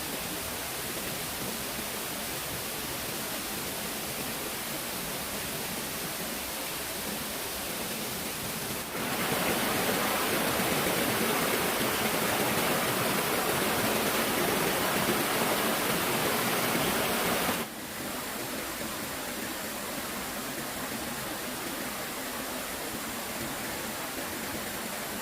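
Steady rushing of flowing stream water. It gets louder and brighter abruptly about a third of the way in and drops back just as suddenly about two-thirds through.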